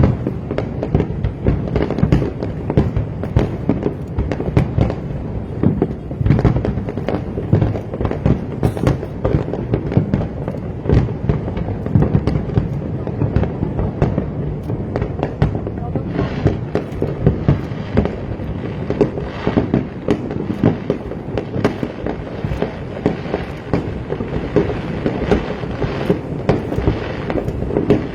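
Fireworks display going off: a dense, continuous run of overlapping bangs and crackles with no pause.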